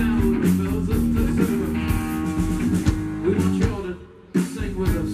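Live rock band playing with electric guitars, bass guitar and drum kit. There is a brief stop about four seconds in, then the band comes back in.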